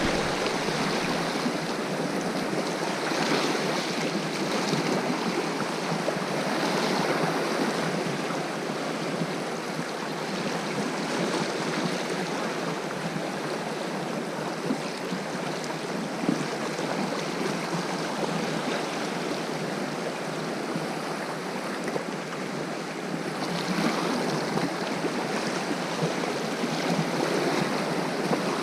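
Sea waves washing against the shore: a steady rushing that swells and eases in slow surges.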